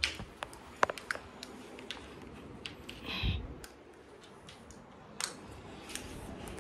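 Fingers handling a smartphone close to its microphone: scattered light clicks and taps, with a dull bump about three seconds in.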